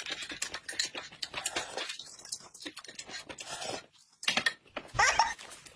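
Close-up eating sounds: chewing and lip smacking over rice and braised pork, with light clicks of chopsticks against a porcelain bowl. A short vocal sound comes about five seconds in.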